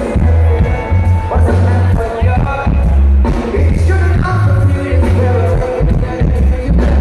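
Live reggae band playing through a loud PA: heavy bass, drums and guitars with a lead vocalist singing over them.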